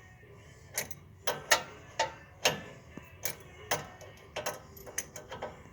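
Crescent wrenches clicking and clinking on a truck's tie rod end nut and stud as the nut is worked loose a bit at a time. About a dozen sharp metallic clicks come at uneven intervals, roughly one or two a second.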